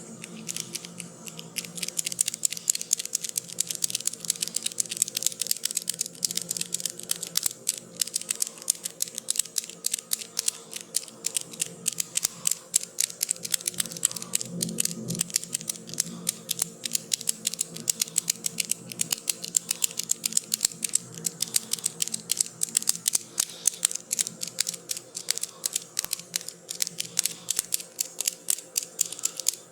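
Rapid, irregular crisp clicks and taps, several a second, starting about a second in, over low steady background music.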